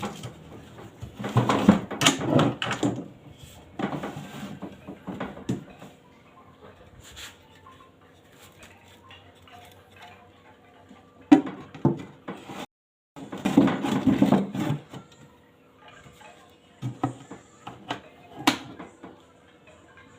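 Irregular knocking and clattering of hand-work on incubator parts, in bursts near the start and through the middle, with a single sharp knock near the end.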